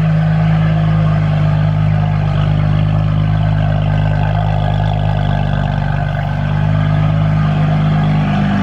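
BMW F80 M3's twin-turbo inline-six (S55) running at idle just after starting, loud and steady at the quad exhaust tips, with a slight dip in level about halfway through.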